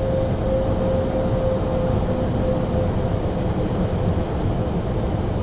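Steady cabin noise on the flight deck of an Airbus A320neo in flight on approach: a constant rush of airflow and engine rumble. A thin steady tone sits over it and fades away over the first few seconds.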